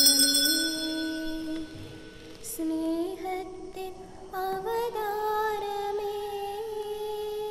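Slow hymn music: a sung melody in long held notes that step slowly up and down. Altar bells' ringing fades out in the first second.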